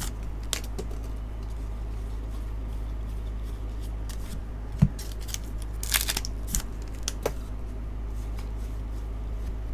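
Baseball trading cards being slid and flipped through by hand, with a few short, crisp swishes and one dull knock about five seconds in, over a steady low hum.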